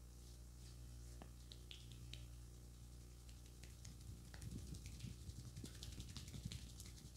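Hands rapidly rubbing and patting a cream-covered face in a facial massage, making soft irregular pats and skin-rubbing sounds. The patting is sparse at first, then denser and louder in the second half, over a steady low electrical hum.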